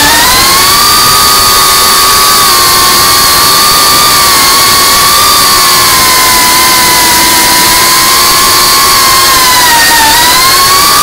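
FPV freestyle quadcopter's brushless motors and propellers whining at a steady high pitch over a rushing hiss. The pitch dips and climbs back as the throttle changes, right at the start and again about ten seconds in.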